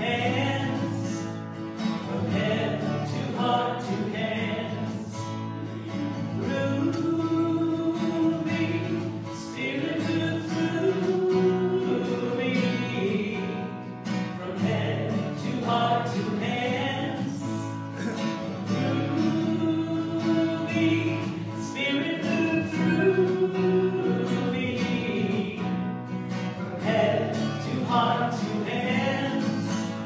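A woman and a man singing a devotional song to acoustic guitar, in long held sung notes.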